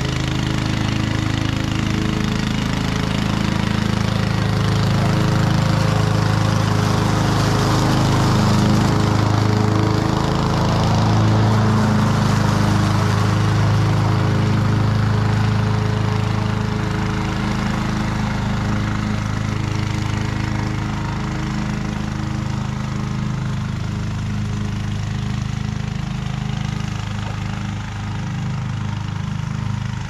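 Honda HRC216 commercial 21-inch walk-behind mower's single-cylinder four-stroke engine running steadily while cutting grass. It grows louder as the mower comes close, a few seconds in, and fades as it moves away in the second half.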